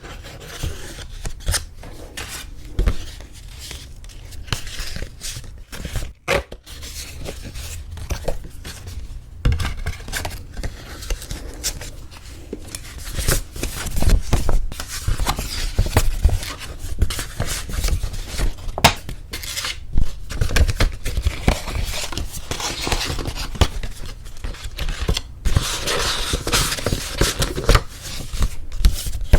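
Paper wedding invitations and their envelopes handled close to the microphone: crinkling, rustling and sharp paper snaps and taps, busier and denser in the second half.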